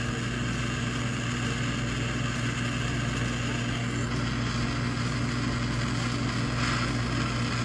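Electric blower running steadily: a motor hum under rushing air, with a slight shift in the hiss about four seconds in.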